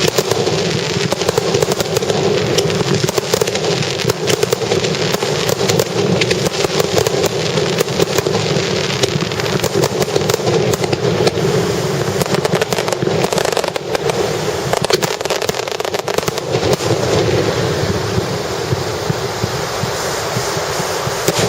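Fireworks starmine barrage: many shells bursting in rapid succession, a dense, continuous run of bangs and crackles.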